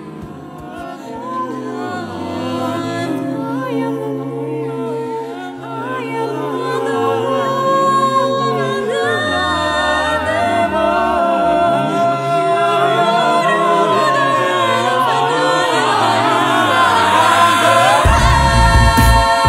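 Vocal group singing a cappella in layered harmony, swelling louder. Near the end a deep pulsing beat joins in.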